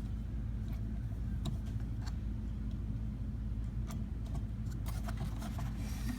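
A steady low hum with a few scattered small clicks and taps from hand work on the headlight assembly as the small screws holding the HID bulb are backed out.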